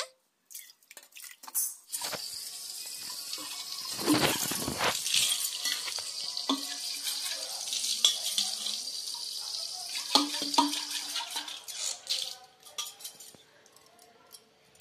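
Water running from a tap onto a copper bottle being rinsed and splashing onto concrete, with a few knocks of the metal bottle. The water starts about two seconds in and stops near the end.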